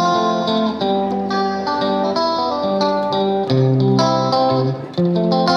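Instrumental background music led by guitar, a run of notes that change every fraction of a second.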